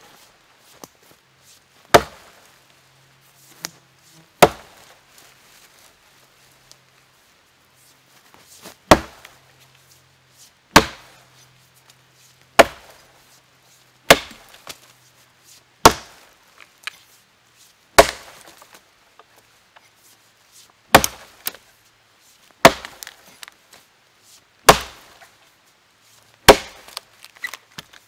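Rinaldi Calabria 700 g axe chopping into a log: about a dozen sharp, separate chops, roughly one every two seconds, with a pause of several seconds after the first two.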